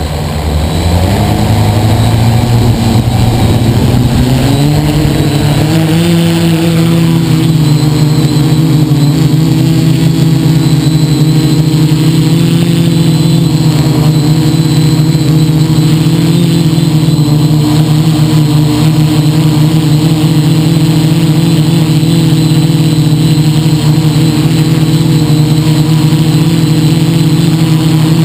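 Quadcopter's electric motors and propellers, heard close up from a camera on the frame. Their pitch rises over the first several seconds as they spin up and the craft lifts off, then settles into a steady loud drone with small pitch shifts as it flies.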